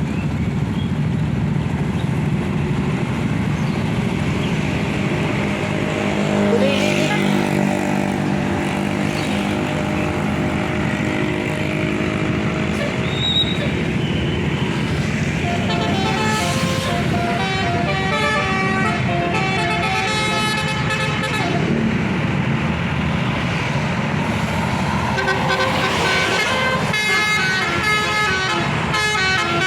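A tour bus's 'Basuri' telolet musical air horn sounds over steady road and engine noise. From about six seconds in it holds chords of several notes, and from about sixteen seconds it plays a quick tune of changing notes.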